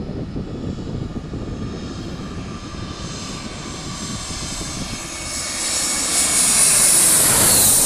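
A twin-engine jet airliner on final approach, its landing gear down, passes low overhead. The engine whine grows louder from about halfway through and is loudest near the end as the plane passes over, when its pitch starts to fall.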